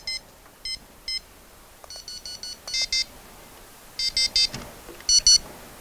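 Electronic carp bite alarms giving short beeps in several quick groups, each alarm set to a different tone, as the alarms are tested and their tones adjusted.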